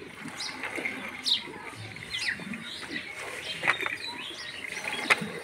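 Small birds chirping on and off, with a few short squirts of milk into a plastic bucket as a cow is milked by hand. The two sharpest squirts come late, one near the end.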